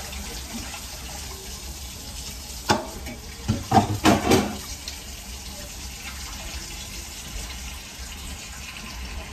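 A saucepan of black beans simmering with a steady hiss while a serving spoon is stirred in it. The spoon knocks once against the pot, then several times more in quick succession about three to four seconds in.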